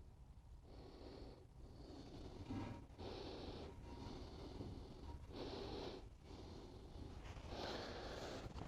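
MIG welding arc crackling in a series of short runs with brief pauses between them, typical of a Hobart Handler 140 laying stitch welds.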